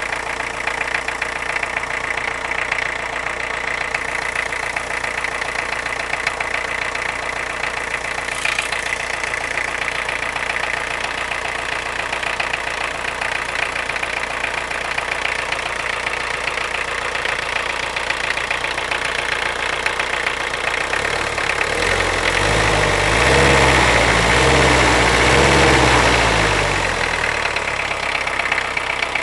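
Car engine idling with a rapid knocking from inside it, the sign of an internal engine fault. The engine is revved for a few seconds after about 21 seconds, then drops back to idle.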